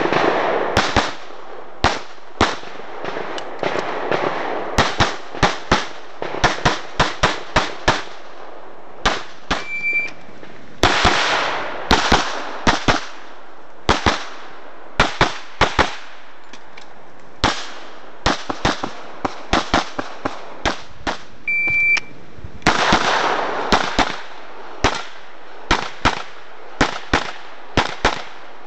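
Dozens of 9mm pistol shots from a CZ 75 SP-01 Shadow fired in a rapid practical-shooting stage, mostly in fast pairs with short pauses between strings. There are a few stretches of rushing noise between the strings.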